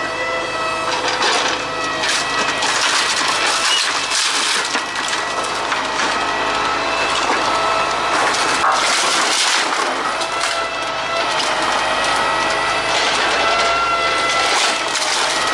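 Wooden pallets and crates cracking and splintering as a hydraulic scrap grapple on a truck-mounted crane grabs and crushes them, the wood breaking under the grip alone, with repeated sharp cracks. A steady machine whine runs underneath.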